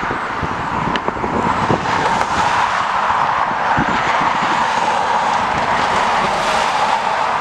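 Jet engines of a narrow-body airliner rolling past on the runway: a loud, steady rush strongest in the mid range that swells a little as it passes. Gusty wind buffets the microphone throughout.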